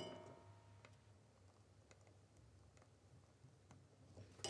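Near silence with faint, scattered clicks and taps from hands handling a circuit board, pin header and solder wire while soldering, and a louder cluster of clicks near the end.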